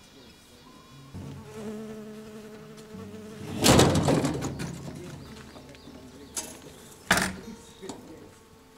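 Honeybees buzzing close by, a wavering hum. A loud, sharp noise comes about three and a half seconds in, and two short clicks follow near the end.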